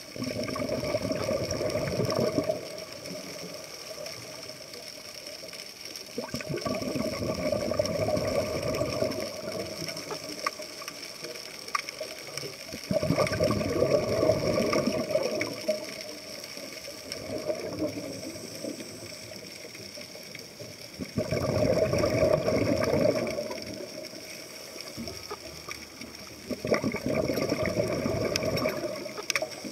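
Scuba diver breathing through a regulator underwater: a gurgling rush of exhaled bubbles comes about every four to seven seconds, six times, with quieter stretches between. A faint steady high tone runs underneath.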